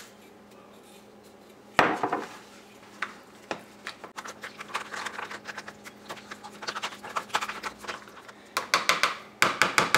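A metal spoon stirring and scraping sour cream and horseradish in a plastic container, a run of quick clicks that grows busier near the end. One sharp knock about two seconds in, from the glass Worcestershire bottle set down on the tile counter, is the loudest sound.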